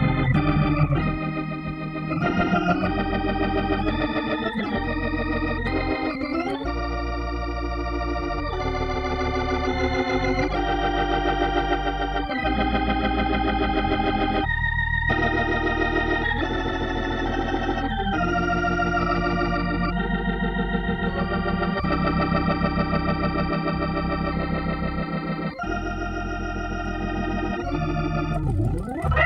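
Hammond B3 organ played live: sustained chords that change every second or two over a low bass line.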